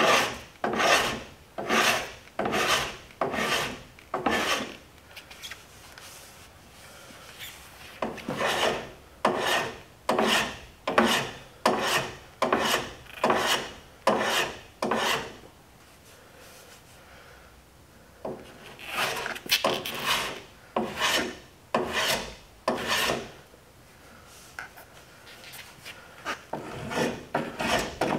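Hand block plane cutting along the plywood edge of a boat transom, in repeated short scraping strokes about one and a half a second, in runs with a few short pauses: chamfering the edge at 45 degrees and cleaning up the epoxy glue joint.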